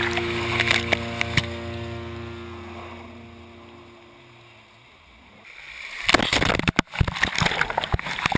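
Muddy water splashing and rushing against a camera mounted low on a Jeep as it ploughs through a mud hole. It starts suddenly about five and a half seconds in and is loud, with many sharp hits. Before it, the last chord of a song fades out, with a few taps of mud striking the camera.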